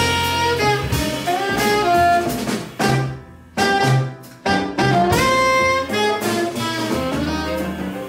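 Jazz quartet playing: a saxophone plays the melody over piano, walking double bass and drum kit, with short breaks in the line about three and four and a half seconds in.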